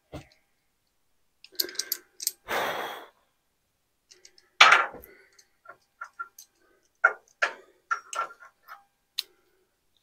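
Locking pliers and a steel mounting bracket being worked against a steel beam overhead, a string of separate metal clicks and knocks. The loudest is a sharp clank about halfway through, followed by a run of lighter metallic ticks.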